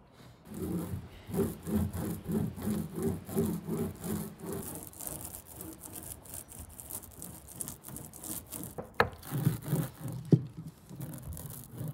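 A grooved metal laminating roller rolled back and forth over epoxy-wetted fibreglass cloth, a rhythmic rubbing rattle at about two to three strokes a second, consolidating the laminate. Two sharp clicks come near the end.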